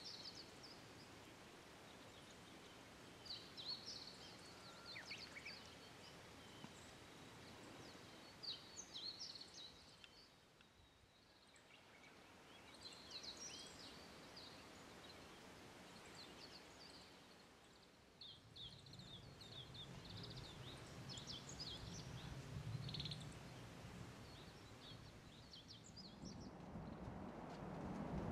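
Faint, scattered chirps of small birds calling over quiet open-air ambience. A low rumble builds in the last ten seconds.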